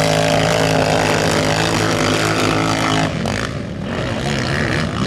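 Racing quad engines from the over-450cc class running hard at high revs on a dirt track, one steady engine note. About three seconds in the sound cuts off suddenly and comes back fainter and more mixed.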